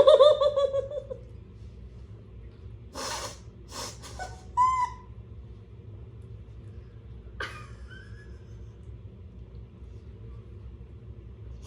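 A person's high, drawn-out whimpering moan in the first second, then a few sharp sniffs and breaths and small squeaks, typical of someone eating very spicy noodles.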